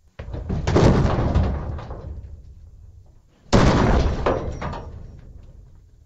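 Hollow metal booms from a steel dumpster being struck, twice: the first swells up in the first second, the second is a sudden hit about three and a half seconds in. Each one rings and dies away over a couple of seconds.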